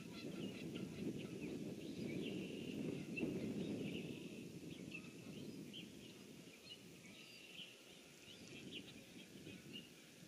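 Songbirds chirping, many short high notes one after another, over a low steady outdoor rumble that eases off about halfway through.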